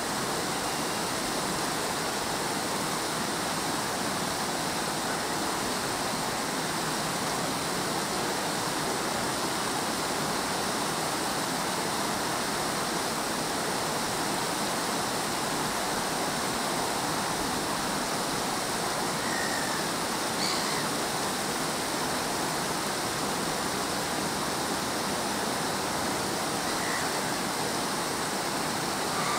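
Steady rush of small sea waves washing over a rocky shore.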